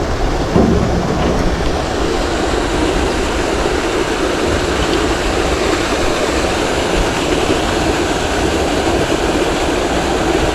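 Steady wind rumbling and buffeting on the microphone.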